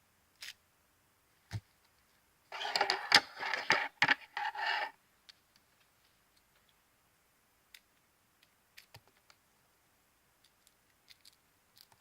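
Slime being squeezed and worked by hand: a wet, crackly squelch lasting about two seconds, then scattered faint clicks.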